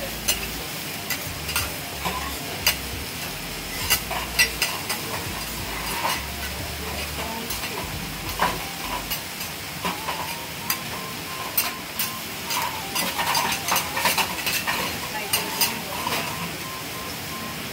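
Okonomiyaki sizzling on a steel teppan griddle with a steady hiss, broken by irregular clicks and scrapes of metal spatulas against the griddle as the cakes are shaped and pressed.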